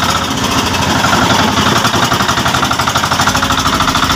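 Outrigger boat's inboard engine running steadily under way, a loud, fast, even pulsing beat.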